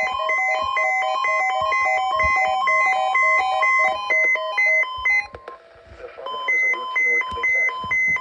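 Electronic beeps: a quick chime-like run of short tones at about four a second, alternating in pitch, then a brief drop about five seconds in, after which evenly pulsed beeps come about twice a second.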